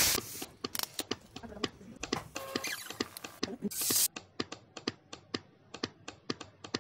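A run of sharp clicks like typing on a keyboard, dense at first and then about three a second, with a short loud hiss at the start and another about four seconds in.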